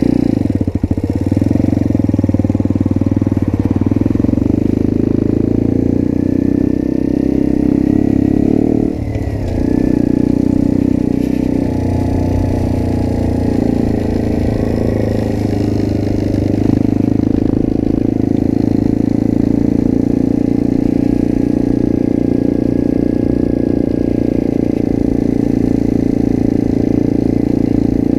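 Motrac M5 minibike, a small single-cylinder Honda Grom copy, running steadily under way. The engine note dips briefly about nine seconds in, then carries on at a steady pitch.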